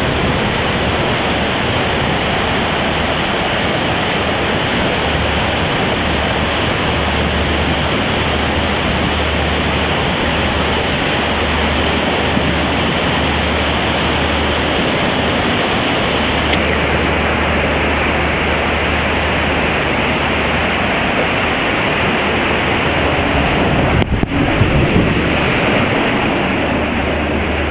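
Steady rush of water and air on the camera microphone while sliding down an enclosed water slide tube, with a brief louder jolt about 24 seconds in.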